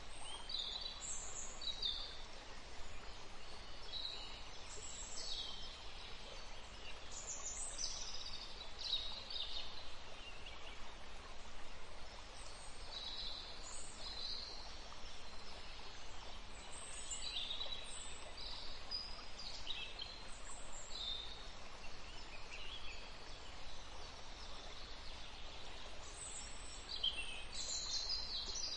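Small birds chirping and calling in short, high bursts, a few every couple of seconds, over a steady background hiss.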